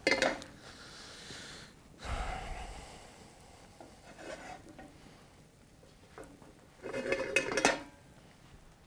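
Pan and cookware clatter as a frying pan is handled over a cooking fire: a quick knock right at the start, a short scraping rush about two seconds in, and a longer run of clinks and knocks about seven seconds in.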